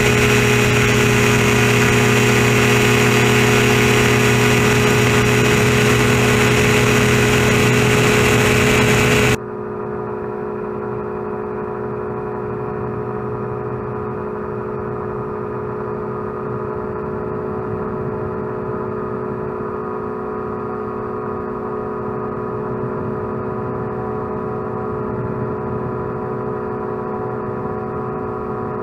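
A gyroplane's engine runs steadily in flight, heard from an onboard camera. About nine seconds in, the sound abruptly turns quieter and duller, with the hiss gone, and then carries on steady.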